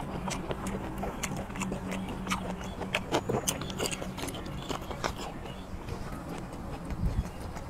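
A man chewing boiled squid with his mouth close to the microphone: repeated wet smacking and clicking mouth sounds.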